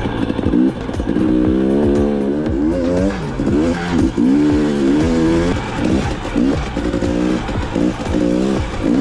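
KTM EXC 250 enduro motorcycle engine revving up and down over and over as the throttle is opened and eased on a sandy trail, each rev rising and falling in about a second.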